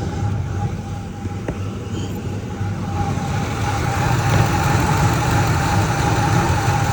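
2003 Ford Expedition V8 idling, with a high-pitched chirping from the accessory belt drive that grows louder about three seconds in. The chirp comes only once the engine reaches operating temperature, and the owner traces it to one of the belt pulleys.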